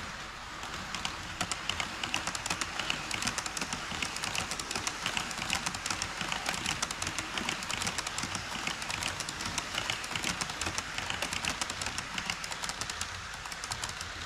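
HO scale model train rolling past on KATO Unitrack, its wheels clicking rapidly over the rail joints from about a second in until near the end, over a steady hiss.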